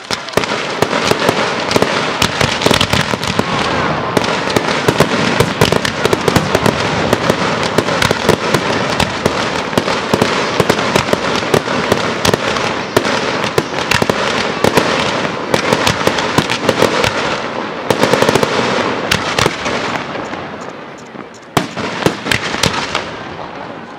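Aerial firework shells bursting in a dense, continuous barrage of rapid bangs and crackle. The barrage fades out about twenty seconds in, and a few separate bangs follow near the end.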